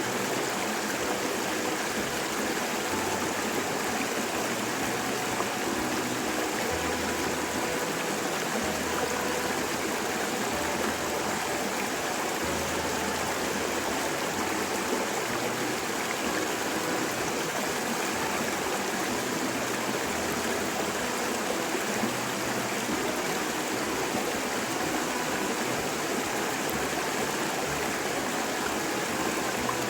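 Steady rushing noise like running water, even and unbroken throughout.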